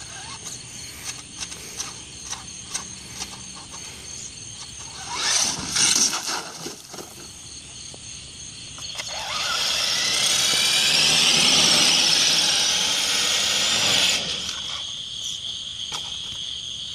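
Traxxas Summit RC truck driving: its electric motor and gears whine high, wavering up and down in pitch, loudest from about nine to fourteen seconds in, with a short loud burst about five seconds in and light clicks and knocks early on. Crickets chirp steadily underneath.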